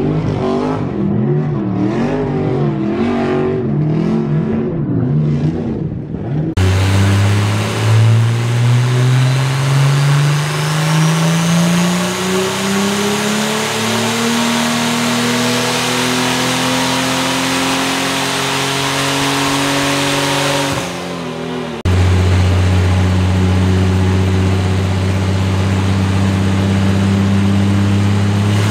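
A car engine revving up and down under a tyre-smoking burnout. Then a turbocharged BMW M20 straight-six on a chassis dyno pulls with the revs climbing steadily for about fourteen seconds, a high whine rising with it. It drops off briefly and is then held at a steady high rpm.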